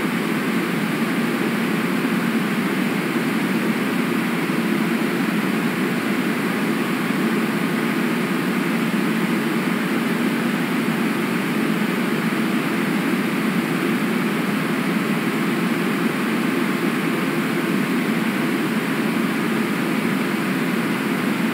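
Steady, unchanging rushing noise of river water, with no distinct events.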